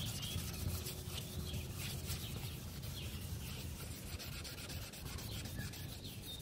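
A cloth pad is rubbed hard back and forth by hand over an oxidized plastic headlight lens, polishing the oxidation off in repeated scrubbing strokes.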